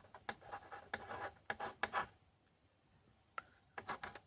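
Pen writing on paper: faint, irregular scratchy strokes, pausing for about a second midway before a few more strokes.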